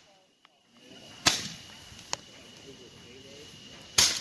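Consumer fireworks going off with sharp cracks: a loud bang about a second in, a smaller pop soon after, and another loud bang near the end, over a faint steady hiss.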